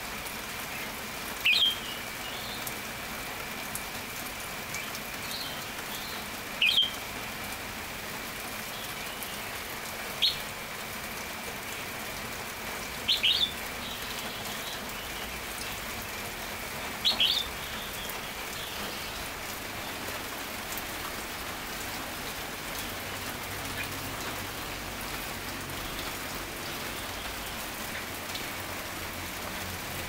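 Steady rain with five short, loud calls from a caged red-whiskered bulbul spaced a few seconds apart, the last of them a little past halfway.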